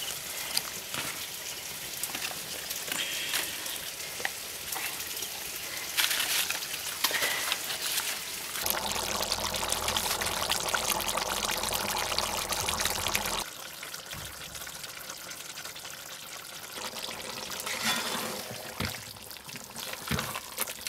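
Chicken curry bubbling and sizzling in a wok, louder for a few seconds in the middle, then stirred with a spoon near the end.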